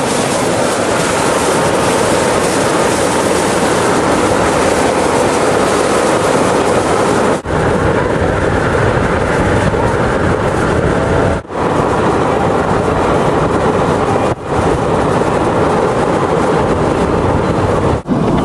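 Steady, loud road and wind noise from a vehicle driving at speed, broken by four brief dropouts.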